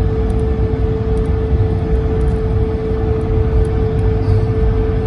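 Airbus A220-300's Pratt & Whitney PW1500G geared turbofans running at takeoff thrust during the takeoff roll, heard from inside the cabin. It is a loud, steady noise with a constant mid-pitched hum over a low rumble.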